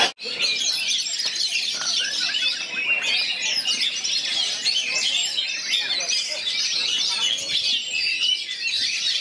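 Several Oriental magpie-robins singing at once: a dense, continuous chorus of quick, varied, high-pitched whistles and chirps.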